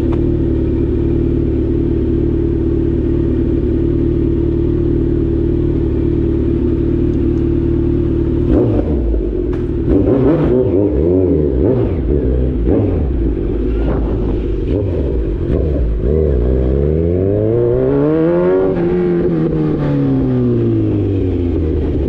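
Kawasaki Z900's inline-four engine through an Austin Racing full exhaust on the move. It holds a steady engine speed for about eight seconds, then the revs rise and fall several times with short breaks, and then make one long climb that peaks about two-thirds in and drops back off.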